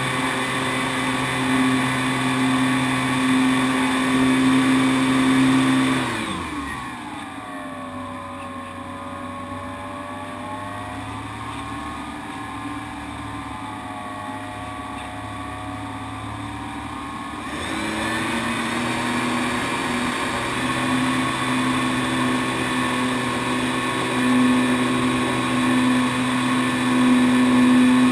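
Onboard sound of a Great Planes Piper J3 Cub RC model plane's motor and propeller running at a steady cruise. About six seconds in the pitch falls sharply as the throttle is cut, and the plane glides on more quietly with faint wavering tones for around eleven seconds. It then throttles back up to a steady run that rises slightly in pitch near the end.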